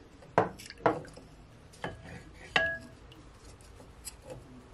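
Wooden spoon stirring a thick sauce in a glass bowl, knocking against the glass a few times; the last knock, about two and a half seconds in, leaves a brief glassy ring.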